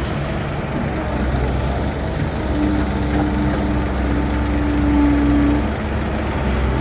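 Heavy diesel machinery running steadily as an excavator loads a dump truck, with a steady whine that comes in about two and a half seconds in and stops near the end.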